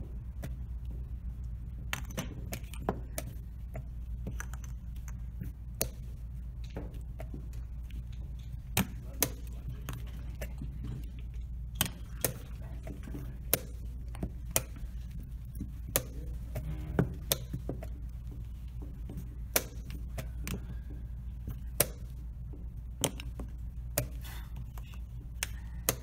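Rapid blitz chess play: plastic chess pieces clacked down on a vinyl roll-up board and the digital chess clock's buttons slapped after each move, a string of sharp, irregular clicks. A low steady hum runs beneath.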